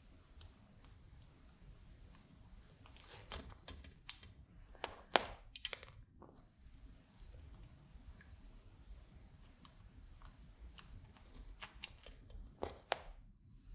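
Light clicks and taps of small resistors being handled and pushed into the through holes of a circuit board. The clicks come in a cluster of sharper ones about three to six seconds in and another near the end.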